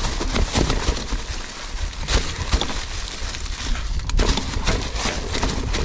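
Mountain bike rattling down a rough, rocky trail under hard braking. Tyres knock over rocks and roots and the bike clatters with many quick impacts, over a low rumble of wind on the microphone.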